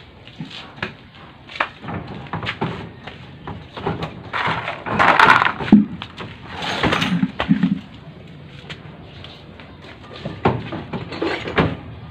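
Irregular metal knocks, clanks and scraping as a Bajaj CT 100 motorcycle engine is manoeuvred by hand into its frame, with a louder scrape about five seconds in and another about seven seconds in.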